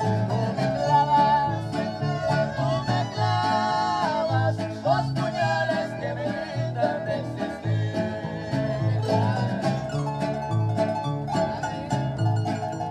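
Mexican arpa grande harp ensemble playing an instrumental passage: the large harp plucks a steady, repeating bass pattern under strummed strings and a sustained melody line.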